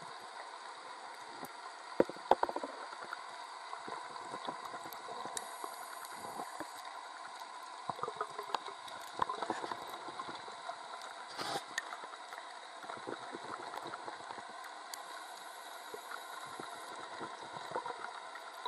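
Underwater ambience heard through a camera housing: a steady hiss with scattered sharp clicks and crackles, a couple of louder clicks about two seconds in and a brief louder burst near the middle.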